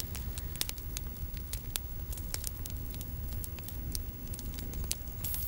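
Wood cooking fire crackling, with sharp irregular pops over a low steady rumble; a high hiss comes in just before the end.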